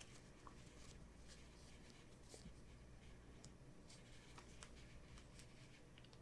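Near silence: room tone with a few faint, scattered ticks and rustles of paper and sticker handling.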